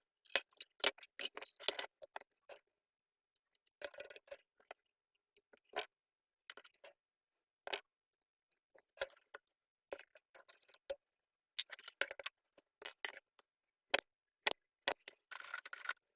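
Irregular small clicks and taps of a floodlight's parts being handled and fitted together, with a denser run of clicks near the end.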